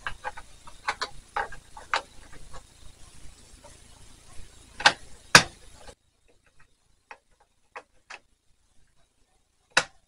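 Plastic clicks and snaps as a Timetec DDR3 memory module is pressed into a Dell Optiplex 7010 motherboard's RAM slot and the slot's retention clips latch. Two louder snaps come about five seconds in, and another sharp click near the end.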